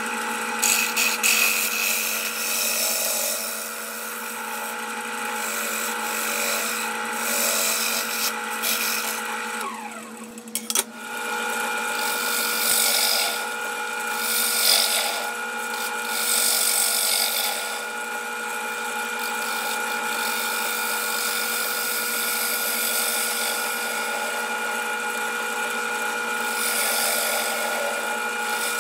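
Wood lathe motor running with a steady whine while a hand-held turning tool cuts into a spinning aromatic cedar bowl, a scraping hiss that swells and fades with each pass. About ten seconds in the sound dips briefly with a falling tone before the cutting resumes.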